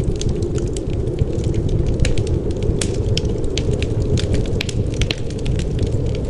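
Wood fire crackling in a fireplace, with many small sharp pops and snaps at irregular moments over a steady low rush of wind.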